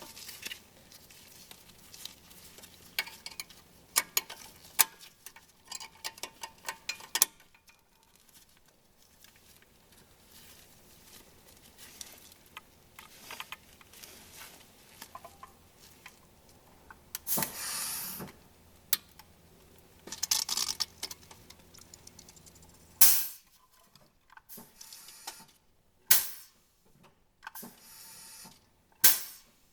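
Scattered clicks, clinks and knocks of hand tools and metal brake parts being handled while a drum brake's wheel cylinder is replaced, with two short hissing bursts near the middle and a few sharper knocks near the end.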